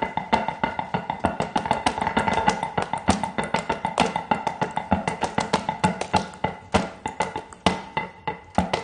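Flamenco music from a flamenco machine: guitar with fast, sharp percussive taps like zapateado footwork.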